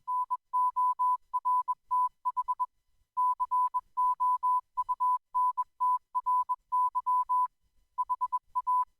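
Morse code sent as a single steady beep tone, keyed on and off in dots and dashes grouped into letters with short pauses between them.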